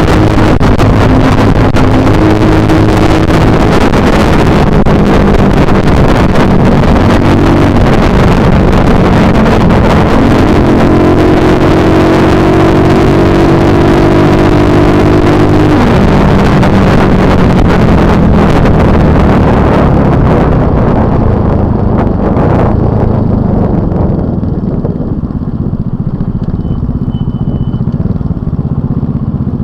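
Small motorcycle engine running at road speed under heavy wind rush on the microphone, its note climbing and dropping several times as speed changes. About two-thirds of the way through, the wind dies away as the bike slows to a stop, leaving a quieter, lower idle.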